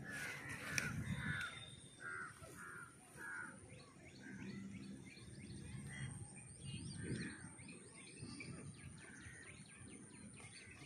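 A bird calls over and over, about six calls in quick succession in the first three seconds or so, followed by faint scattered chirping of small birds.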